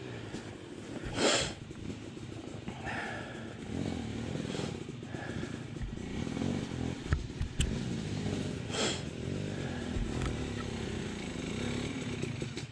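Dirt bike engine idling steadily at a stop, with a couple of short rustling, scuffing bursts over it.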